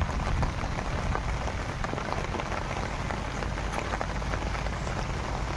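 Steady rain falling on flooded paddy water: a dense, even patter of drops.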